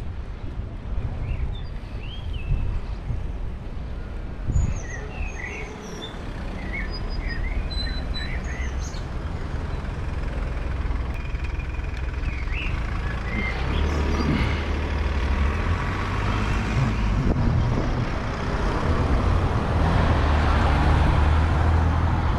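Small birds chirping and calling over the first half, over a steady low rumble of street traffic. The rumble and hiss grow louder in the second half.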